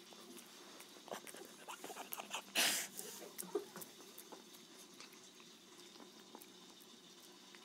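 Yorkshire terrier chewing sticky toffee: scattered small wet clicks and smacks of its mouth working the candy, with one short hissing puff of breath about two and a half seconds in.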